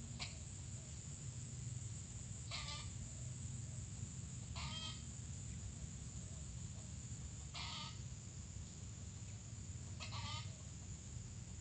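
Junglefowl giving four short calls, a few seconds apart.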